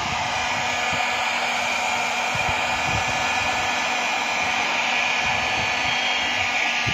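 Bosch 2000 W electric heat gun running steadily, a continuous rush of hot air with a faint whine, as it melts a plastic welding rod into a groove along a cracked plastic water tank.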